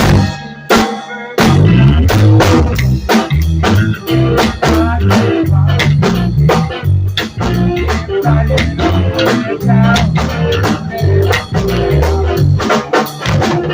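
Band playing with drum kit and guitar. A few loud hits open it, the full band comes in about a second and a half in with a steady groove, and it stops on a final hit near the end.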